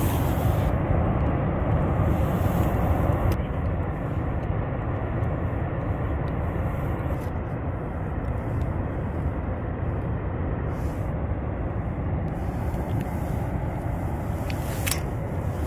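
Steady low rushing outdoor noise, a little quieter after about three seconds, with a faint click near the end.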